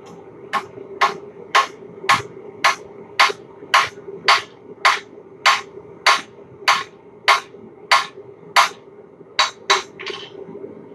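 Blacksmith's hammer striking hot steel on an anvil: about fifteen evenly paced blows, roughly two a second, each with a short metallic ring, then two quicker blows near the end. A steady hum runs underneath.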